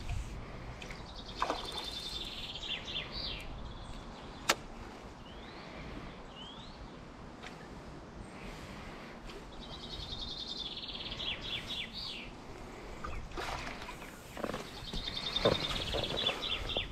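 A songbird singing the same short phrase three times, a fast trill running down into a few separate notes, with a sharp click about four and a half seconds in.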